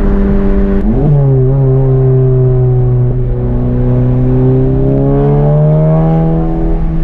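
Modified VW Golf GTI Mk7's turbocharged 2.0-litre four-cylinder engine and aftermarket cat-back exhaust running while driving. Its pitch jumps and then drops about a second in, climbs gradually over the next few seconds, and then holds steady.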